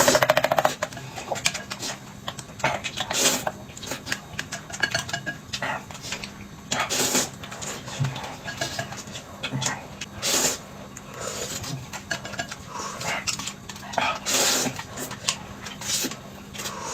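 Eating utensils clinking and knocking against bowls and dishes: a scattered series of sharp clicks and clatters, with a louder burst at the start.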